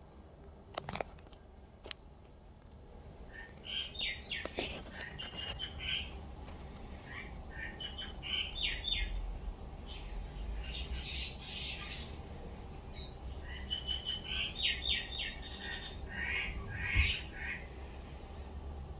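A small bird chirping and squawking in repeated quick runs of short, high chirps, after a few sharp clicks in the first two seconds.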